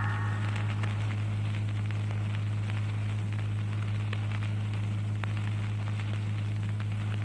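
Steady low electrical hum with a light crackle and hiss, the background noise of the recording between phrases of Qur'an recitation.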